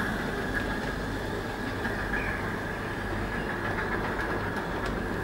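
A 5-inch gauge miniature train running steadily along the garden track.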